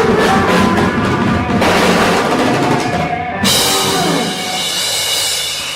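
Live rock band with a drum kit playing the closing bars of a song. About three and a half seconds in, it ends on a cymbal crash that rings on under a held final chord.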